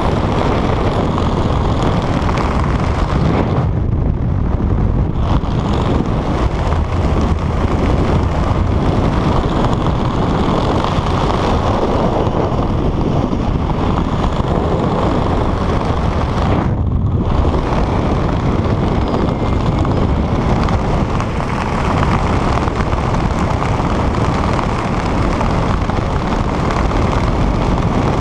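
Wind rushing over a camera microphone during descent under an open parachute canopy: a loud, steady rush whose high hiss drops out briefly twice.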